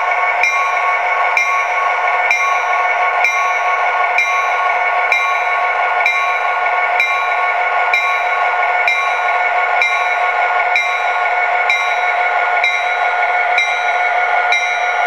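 A DCC sound decoder in an HO-scale F59PHi model, playing a steady EMD 710 12-cylinder turbo diesel sound through a small speaker as the locomotive creeps at speed step 1. Over it a locomotive bell dings about once a second.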